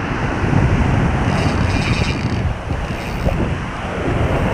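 Wind buffeting the microphone over the wash of breaking surf on a beach.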